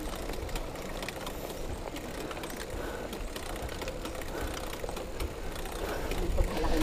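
Bicycle freewheel and drivetrain ticking faintly as the bike rolls, over a steady hiss of wind and road noise.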